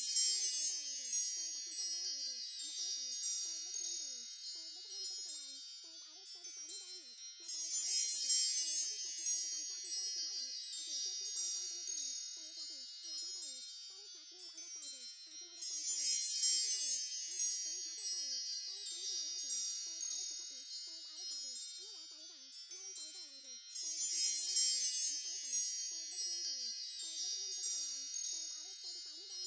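Tinkling wind chimes, many high ringing tones layered together. The sound swells afresh about every eight seconds as the same looped passage repeats.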